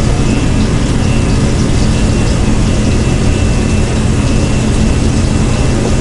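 Steady, unbroken rumble and hum of commercial kitchen equipment: the gas range and griddle with their ventilation running.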